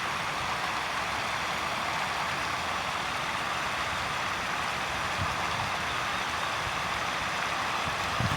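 Small man-made waterfall splashing steadily, a continuous even rush of falling water.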